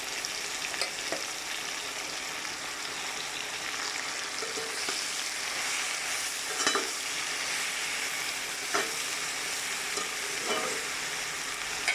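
Hilsa and green chillies frying in soybean oil in a pan, a steady sizzle, as bottle gourd is added. A stirring utensil scrapes the pan about five times at irregular intervals.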